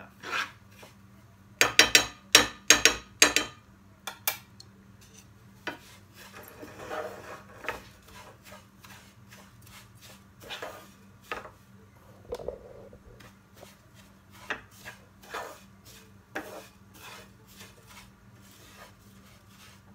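Spoon and wooden spatula stirring and scraping dry grated coconut in ghee around a nonstick frying pan, with irregular scrapes and taps. About two seconds in comes a quick run of sharp knocks of the utensil against the pan, the loudest sounds here.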